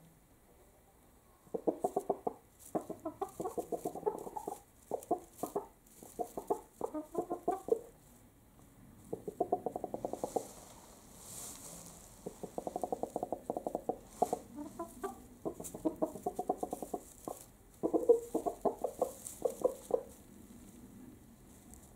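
Chickens clucking at close range: runs of rapid, low clucks in bursts a second or two long, repeated with short pauses between them.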